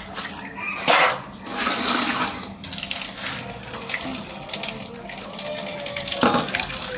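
Water splashing and running in a stainless steel basin while things are washed and handled, with two louder rustles of a plastic bag, about a second in and near the end.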